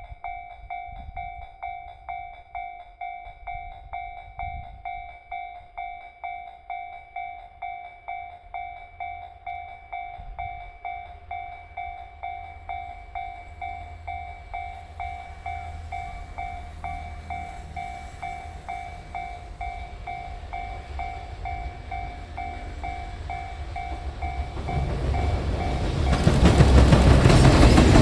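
Japanese level-crossing warning bell ringing at a steady pace of about one and a half strokes a second while a freight train hauled by an EF210 electric locomotive approaches with a growing rumble. About 25 seconds in, the train reaches the crossing and its loud running noise takes over.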